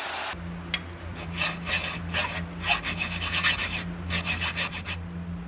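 Hand file rasping back and forth across the cut end of a steel threaded rod held in a bench vise, about one stroke every half second, over a low steady hum. A moment of bandsaw noise cuts off just at the start.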